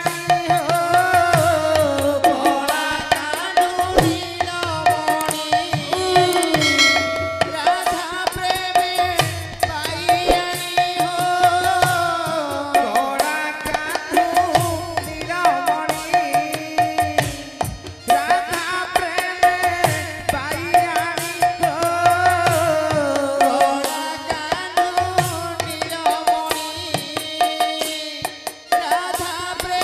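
Devotional kirtan music: a hand drum keeps a quick rhythm under hand cymbals, with a wavering melody line from voice and keyboard over it.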